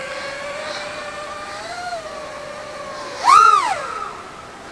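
Eachine Wizard X220S racing quadcopter's brushless motors and propellers whining steadily on a 5S battery. About three seconds in, a loud burst of throttle sends the whine swooping sharply up in pitch and back down within half a second.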